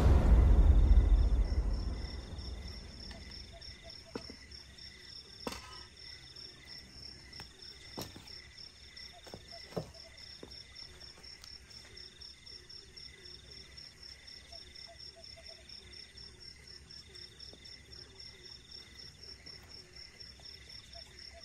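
A loud, deep boom at the start that dies away over about two seconds, followed by crickets and other insects chirping steadily, with a few faint knocks in between.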